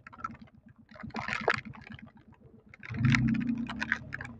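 Yuki Funrider 125 motorcycle engine running under way, its low firing pulses growing louder about three seconds in, with raindrops ticking irregularly on the microphone.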